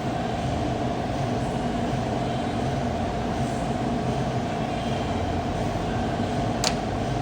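Bridgeport Series 1 vertical milling machine's spindle running steadily with a constant whine over a low rumble. A single sharp click comes near the end.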